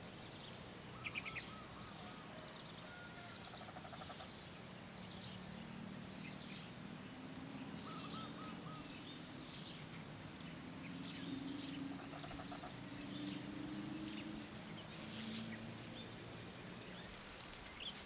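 Faint rural ambience with small birds chirping and trilling on and off, and a low droning hum, like a distant engine, that swells through the middle and fades again.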